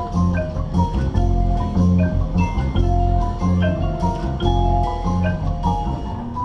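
Marching band front ensemble playing: a flowing line of marimba, xylophone and glockenspiel notes over long held low bass notes.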